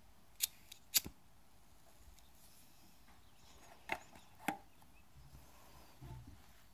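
Quiet outdoor background broken by four short, sharp clicks: two in the first second and two more around the middle.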